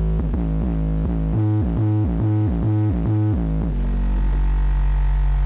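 A 12-inch car subwoofer plays electronic music with heavy bass: a quick run of short, punchy low notes, then one long held deep bass note in the last couple of seconds.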